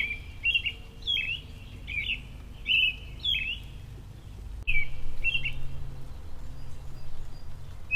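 A songbird chirping: a run of short, sharply swooping notes, about two a second, with a pause in the middle. A low rumble comes in suddenly about halfway through.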